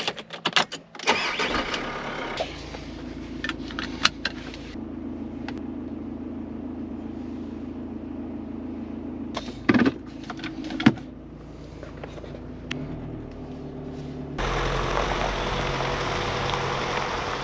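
Vehicle engine being started after a few clicks, then idling with a steady low hum. Two thumps come near the middle. Near the end a louder steady noise sets in suddenly.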